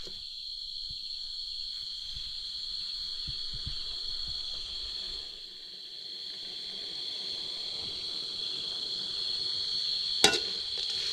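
Steady, high-pitched trilling chorus of night insects such as crickets, over a faint hiss of insects dry-frying in a wok. A single sharp knock, the spatula striking the wok, comes near the end.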